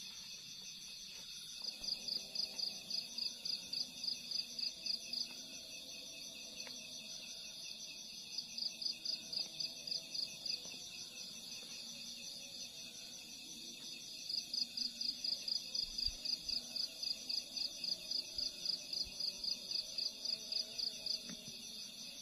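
Night insect chorus: a steady high trilling, with a louder nearby insect calling in trains of rapid, even pulses that come in three bouts of a few seconds each.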